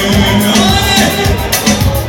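Live amplified folk-band music: a violin playing over a steady beat through the hall's sound system.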